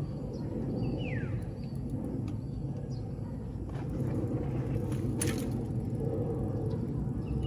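Steady low rumble of wind and tyre noise on the microphone during a mountain-bike ride, with a short falling squeak about a second in and a sharp click a little past the middle.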